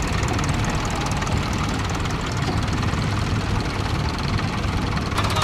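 Vintage tractor engine running steadily at low revs with an even, rapid pulsing beat, as the tractor drives across grass.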